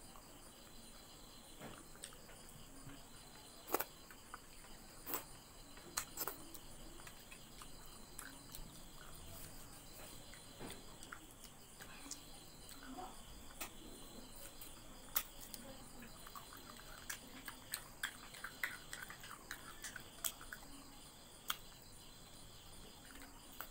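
Eating sounds of chewing chicken curry and rice by hand: scattered short mouth clicks and lip smacks, coming more often in the second half. Behind them runs a faint, steady, high chirring of insects.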